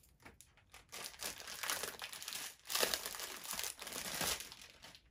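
Packaging crinkling and rustling as a boxed item is handled and unwrapped. The rustles come unevenly from about a second in and stop just before the end.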